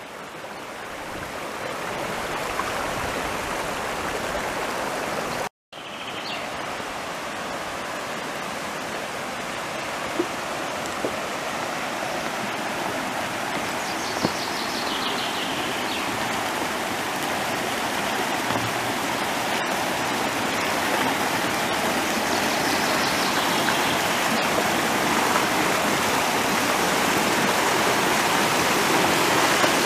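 Mountain stream rushing, a dense, steady water noise that grows gradually louder. It cuts out for a moment about five and a half seconds in.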